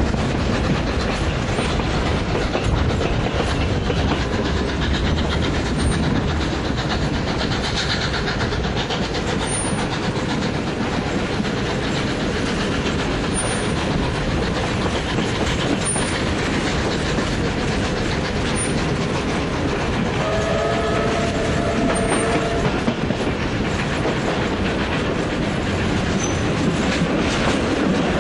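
Steam-hauled passenger train running, heard from an open carriage window: a steady rumble and clatter of the carriage wheels on the rails. About twenty seconds in, the DD17 locomotive's steam whistle sounds once for about two and a half seconds.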